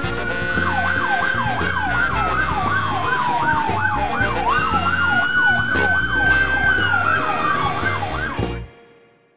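Fire engine sirens: one wails, rising and falling slowly, while a second yelps rapidly over it at about four sweeps a second. The sirens cut off sharply near the end, with background music underneath.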